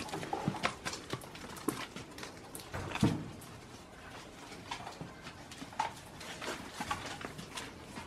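Goats moving about a wooden pen with straw bedding: scattered hoof knocks and rustling, with one louder knock about three seconds in.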